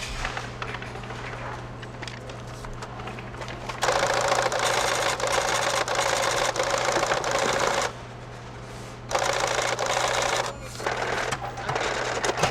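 Supermarket checkout till's receipt printer rattling rapidly as it prints, in three bursts: a long one of about four seconds, then two shorter ones, over a steady low hum and light checkout clatter.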